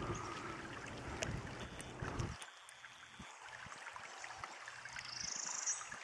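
Outdoor woodland ambience: a low rushing noise for the first two seconds or so that then drops away to a faint background, with a short buzzy high-pitched call about five seconds in.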